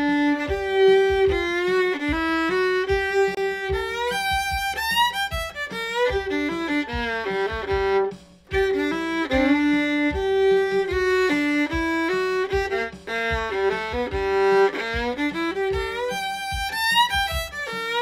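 Solo fiddle playing short bluegrass licks built on the G major blues scale, in two phrases with a brief pause about eight seconds in.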